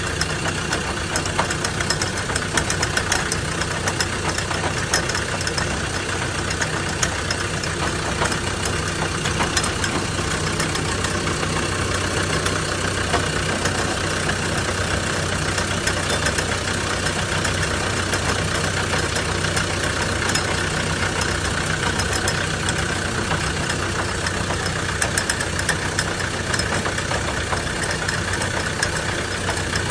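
Land Rover Defender 110 Td5, its five-cylinder turbodiesel running steadily, with the noises from the front axle that its owner is recording to track down. Faint ticks sit over a steady drone.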